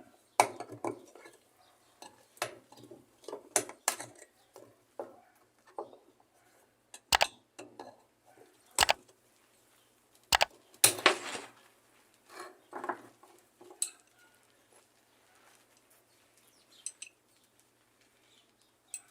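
Metal clinking and knocking as a screwdriver works a rusted washing-machine part loose. The hits are irregular and sharp, some ringing briefly, and the loudest come about seven to eleven seconds in.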